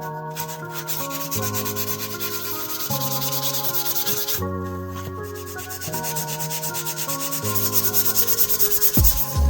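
Steel pocket-knife blade being hand-sanded on sandpaper in quick back-and-forth strokes, pausing briefly about four and a half seconds in. Background music with changing chords plays underneath, and a heavy bass comes in near the end.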